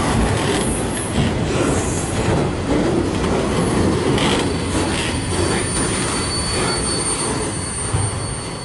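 Rear cars of a Canadian National freight train rolling past close by, steel wheels rumbling and clattering on the rails. A thin, high wheel squeal joins in about halfway through, and the sound eases slightly near the end as the train's end goes by.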